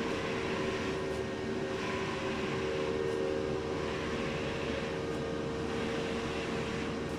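Challenger FY-3286J wide-format eco-solvent printer running: a steady machine hum with a whooshing swell that repeats about once a second.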